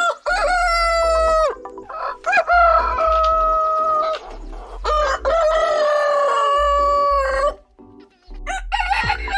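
Rooster crowing: three long cock-a-doodle-doo crows in a row, each lasting one to two seconds.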